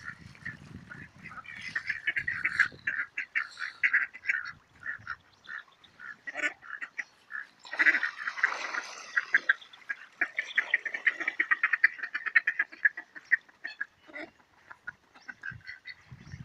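A flock of ducks, mallards among them, quacking in rapid runs of short calls, with a louder, noisier flurry about eight seconds in.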